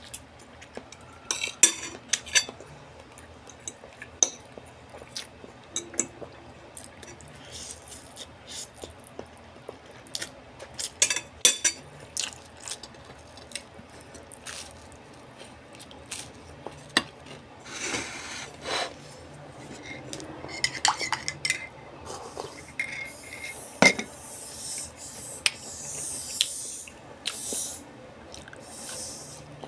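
Eating utensils clinking and scraping against dishware while a meal of noodles is eaten: irregular sharp clinks, some loud, with quieter scrapes in between.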